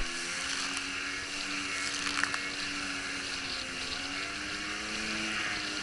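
A small watercraft's engine running steadily at speed, its pitch wavering slightly, over the rushing hiss of spray and wind. A sharp knock comes right at the start, with a smaller one about two seconds in.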